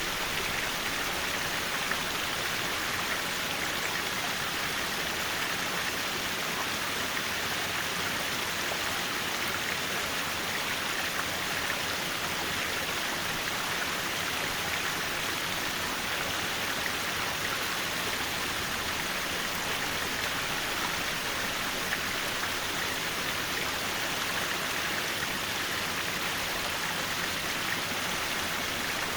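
Mountain valley stream flowing: a steady, even rush of water with no breaks.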